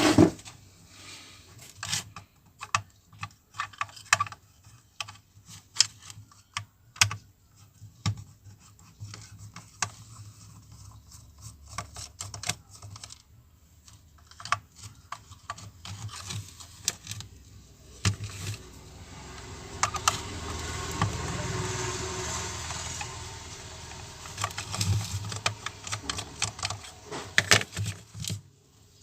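Scattered small clicks and taps of a screwdriver and plastic parts as a Bluetooth speaker's casing is unscrewed and opened. A rushing noise swells and fades for several seconds past the middle.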